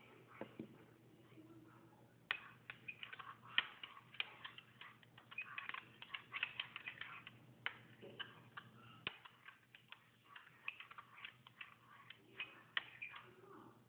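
Sticky homemade slime of glue and shaving cream being stirred and squished by hand: a rapid, irregular run of small wet clicks and smacks, starting about two seconds in.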